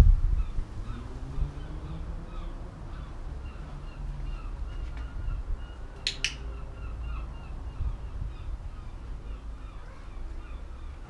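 A dog-training clicker clicks once, a quick double snap, about six seconds in, marking the dog's nose touching the trainer's hand. Small birds chirp faintly throughout over a low outdoor rumble, with a low thump at the very start.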